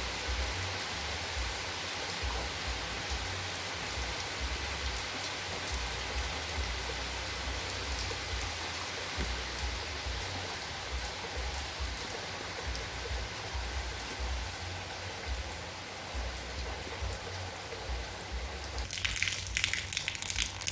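Steady rain falling with a dense patter of drops. For the last two seconds or so the sound turns brighter and more crackly.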